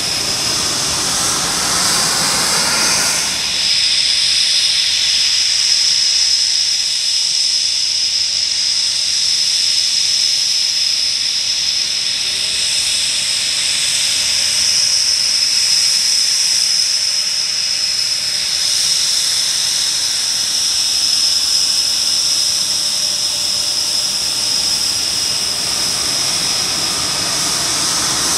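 Panavia Tornado jets taxiing, their twin RB199 turbofans at low power giving a steady high-pitched whine over a hiss. The sound is fuller for the first three seconds or so, then settles to the whine.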